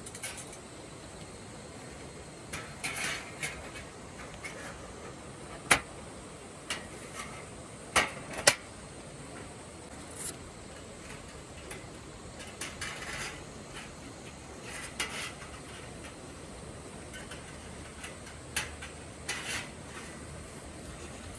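Metal cookware and utensils clinking and knocking at irregular intervals, with the loudest sharp knocks about six and eight seconds in.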